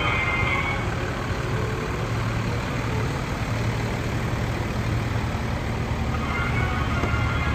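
A large vehicle's engine idling with a steady low hum under general street noise. Music comes back in near the end.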